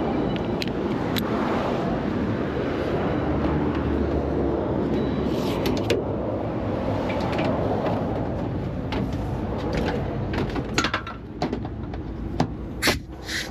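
Heavy vehicle running steadily, with a cluster of sharp knocks and clicks in the last few seconds.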